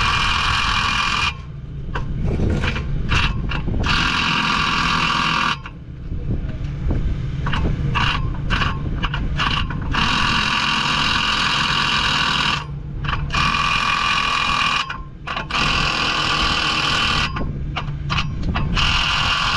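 Machinery on a construction site: a steady low engine rumble under a loud, high-pitched whine. The whine cuts in and out abruptly in runs of one to four seconds, with short blips between them.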